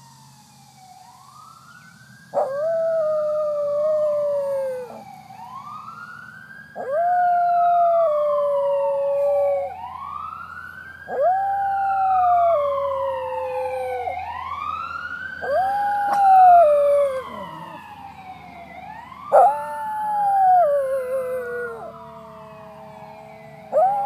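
A West Highland White Terrier howling along with a fire truck's wailing siren. The siren rises and falls about every four seconds, and the dog gives about six long howls, each starting suddenly and lasting a couple of seconds.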